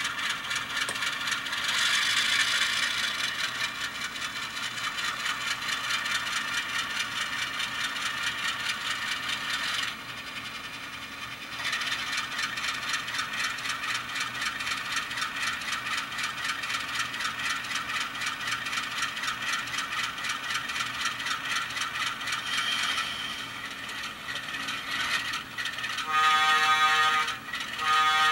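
Recorded Alco diesel prime mover sound from the sound decoder of an Atlas N-scale Alco RS-3, running steadily through the model's tiny speaker with a thin, bassless tone, and dipping briefly about ten seconds in. Near the end the locomotive's horn sounds twice, each blast over a second long.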